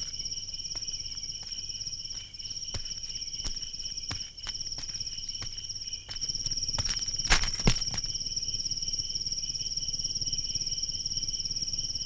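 Crickets chirping in a steady, fast-pulsing high trill, with scattered light clicks and two louder knocks about seven and a half seconds in.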